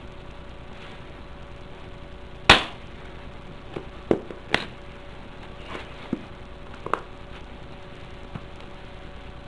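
Steel hex key snapping onto the strong side of a neodymium Halbach array in an aluminium tube: one loud, sharp metallic click about two and a half seconds in. A few softer clicks and knocks of metal follow.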